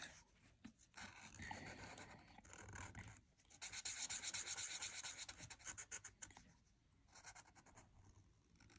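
Black Sharpie felt-tip marker scribbling on paper in quick back-and-forth strokes, colouring an eye in solid. It is faint, with the busiest scribbling in the middle and short pauses between bursts.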